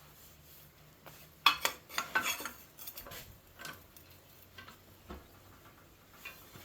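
Cut pieces of sheet steel clinking and clattering as they are handled, with a quick cluster of sharp metallic knocks about a second and a half in, then a few scattered lighter clinks.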